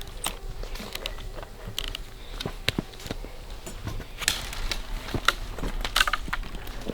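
Scattered light clicks, knocks and rustles of gear being handled, with louder rustling bursts about four and six seconds in.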